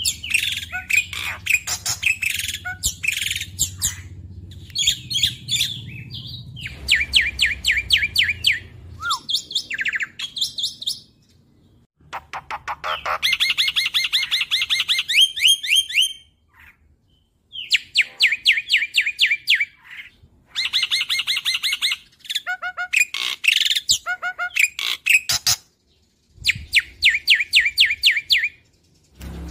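Black-winged starling singing: phrases of fast, rattling repeated notes, each a second or few long, broken by short pauses.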